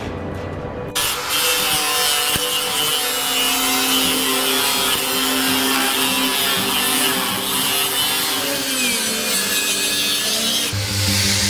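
Angle grinder cutting along the edge of a sheet-metal radiator tank, starting about a second in and running steadily with a harsh, hissing grind to open the tank.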